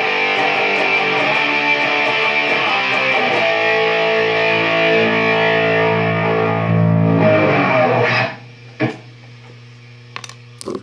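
Distorted electric guitar chords played through an amplifier, ending on a long held chord that is cut off sharply about eight seconds in. Afterwards the amplifier's steady hum remains, with a few knocks and clicks near the end.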